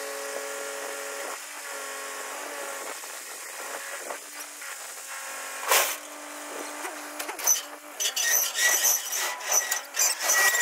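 Tipping hoist of a 1987 Mitsubishi Fuso truck raising the tray with a steady whine. A sharp bang about six seconds in, then repeated loud metal clanks and scraping as the steel stock crate slides off the tipped tray.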